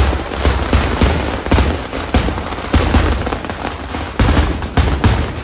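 Kerala temple vedikettu fireworks: a dense, continuous barrage of loud bangs and crackling, with deep booms landing about every half-second.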